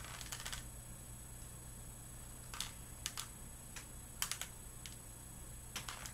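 Irregular light clicks and taps from hot-gluing work: a glue gun and craft pieces being handled. A faint steady low hum runs underneath.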